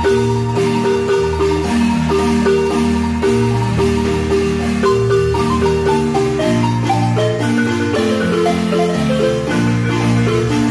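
Marimba playing a quick melody of struck notes over a steady, moving bass line.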